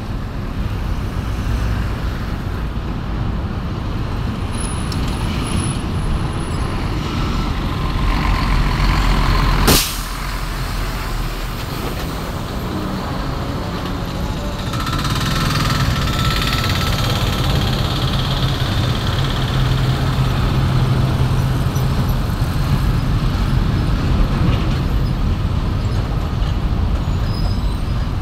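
Busy road traffic: cars, minibuses and trucks passing close, their engines and tyres running continuously. There is a single sharp click about ten seconds in, and a louder steady engine hum from about fifteen seconds on.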